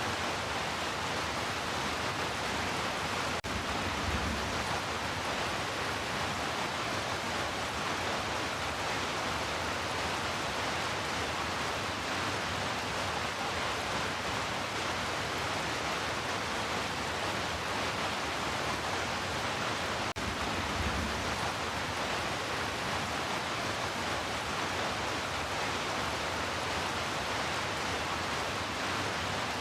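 Heavy rain falling steadily, an even unbroken hiss, with a brief low rumble twice, about four seconds in and again near twenty-one seconds.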